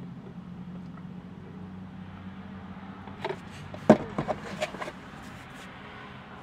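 Steady low hum inside a car. About four seconds in comes one sharp knock, then a few quick clicks and rustles: a drink cup being set down and takeout food packaging being handled.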